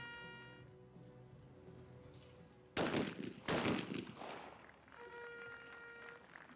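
Two shotgun shots in quick succession, about 0.7 s apart, from an over-and-under trap gun, both barrels fired at a clay target, each shot followed by an echo.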